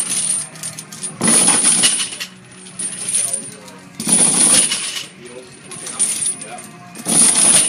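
Heavy steel chains hung on a loaded deadlift barbell clanking and rattling as the bar is lifted and set down for repeated reps. There are three loud, jangling bursts about three seconds apart, each lasting about a second.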